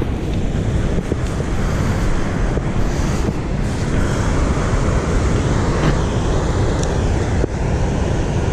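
Steady rushing noise of wind buffeting the microphone over the constant rush of spillway water.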